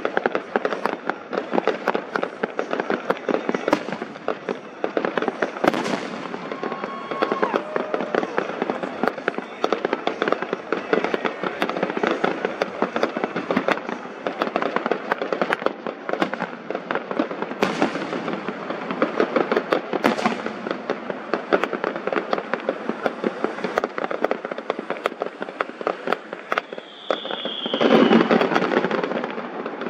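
Aerial fireworks going off: a dense, rapid run of crackling pops with a few heavier bangs. Near the end a short whistle sounds, followed by a loud burst.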